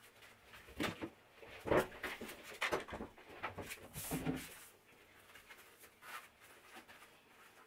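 Handling noises as items are cleared off a tiled floor: a string of short knocks and clatters of plastic bottles and cardboard tubes being picked up and set down, then the softer rustle of a fabric bath mat being lifted. The knocks come thickest in the first four seconds or so and fade to faint rustling after.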